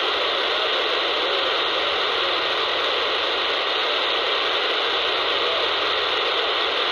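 Steady static hiss from a RadioShack Pro-651 scanner's speaker, tuned to 27.635 MHz AM on the 11-metre freeband with no voice on the channel, a faint steady tone running under the hiss.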